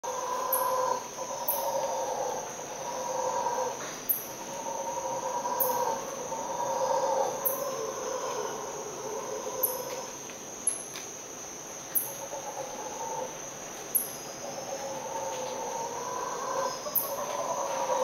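Mantled howler monkeys roaring in long swells that rise and fall, over a steady insect buzz. Short, sharp high chirps sound every second or two.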